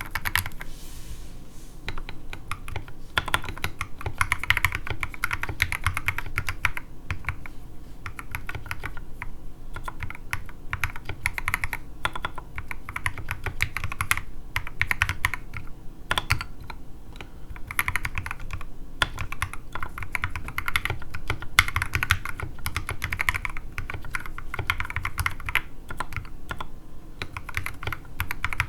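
Mechanical keyboard with lubed and filmed Everglide Sakura Pink linear switches and SA-profile ABS keycaps, typed on quickly and continuously, a dense stream of key clacks with short pauses, the keyboard sitting directly on an oak desk without a mousepad.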